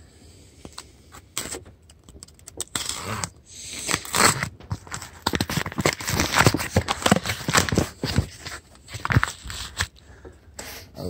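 Cardboard cases being handled on wire shelving: irregular scrapes, rustles and knocks of cardboard being shifted and opened, sparse at first and busier from about three seconds in.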